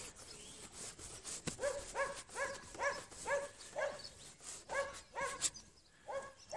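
A dog barking repeatedly, about two short barks a second, starting about a second and a half in and pausing briefly midway.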